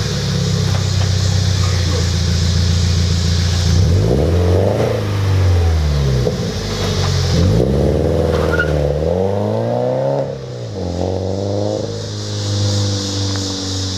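2014 Subaru BRZ's flat-four boxer engine through an MXP Comp RS cat-back exhaust: a steady engine note, then revving up and down several times, settling to a steadier, quieter note near the end.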